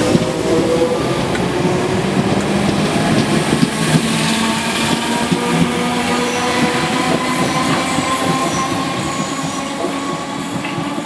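Merseyrail PEP-family electric multiple unit moving through the station, running with a steady whine over rail noise. It grows a little quieter near the end.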